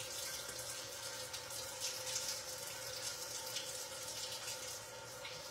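Kitchen faucet running with a steady splashing hiss as hands are washed under the stream. A steady low hum runs underneath.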